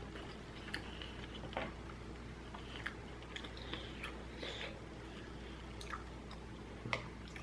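A person chewing a mouthful of ramen close to the microphone: scattered soft, wet mouth clicks and smacks.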